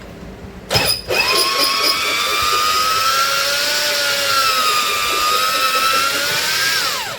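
Electric drill driving a hone inside a Kirloskar engine's cylinder sleeve to polish the bore: a short burst, then the drill starts about a second in and runs with a steady whine, its pitch sagging a little, before winding down near the end.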